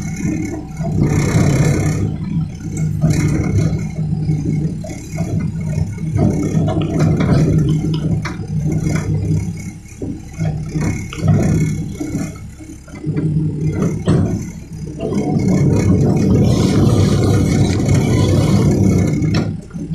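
Caterpillar excavator's diesel engine working under load, rising and falling, with scattered clatter and knocks. It eases off for a moment about two-thirds of the way through, then picks up strongly again.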